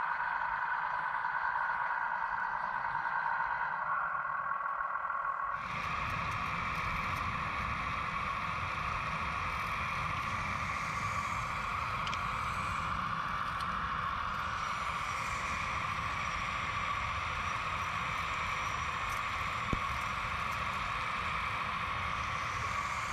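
Electric hydraulic pump of a radio-controlled Kubota mini excavator model whining steadily while the arm and bucket dig and lift soil. A rougher low rumble joins after about five seconds, and there is a single click near the end.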